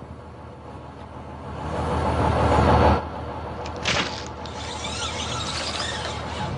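A loud rushing noise swells and then cuts off suddenly. About a second later comes a sharp crack as a cut section of tree trunk, pulled over on a rope, snaps free, followed by a wavering high sound as it starts to fall.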